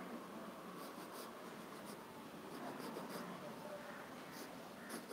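Pen sketching on paper: faint, short scratchy strokes coming in small groups as lines of a figure are drawn.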